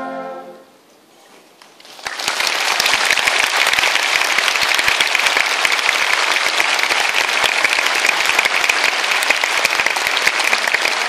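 A brass band's final held chord dies away, and after a short lull a large audience breaks into steady applause about two seconds in.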